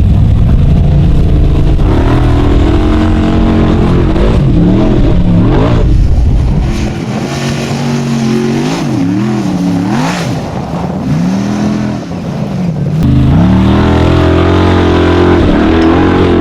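Racing car engine revving up and down repeatedly over a deep steady rumble; the revs drop back and the rumble thins out for several seconds in the middle.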